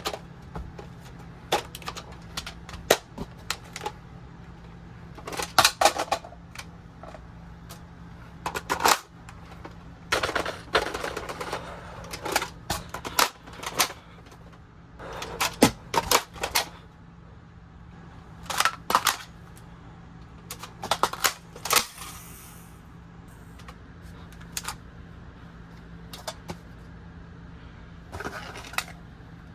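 Airsoft M4 rifle being handled through reloads: sharp clicks and metallic clacks of the magazine, charging handle and bolt, coming in irregular clusters with rattling and sliding between them.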